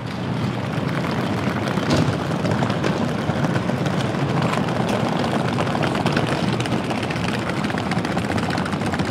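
Steady, dense din of a train station waiting room, with a sharp knock about two seconds in.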